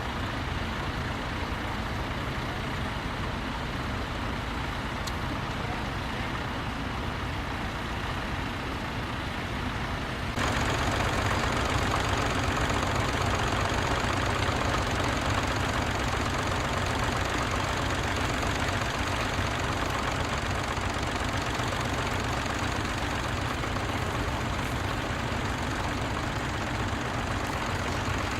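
Tractor engine running steadily. About a third of the way in, the sound jumps abruptly louder and brighter and stays that way.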